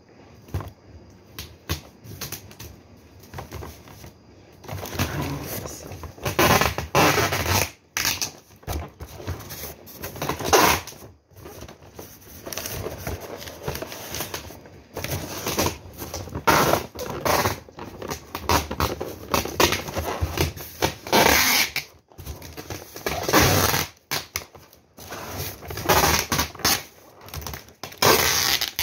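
Packing tape being pulled off the roll in repeated rasping strips, each lasting a second or two, mixed with the crinkle and rustle of plastic water bottles and cardboard being handled as they are wrapped and taped.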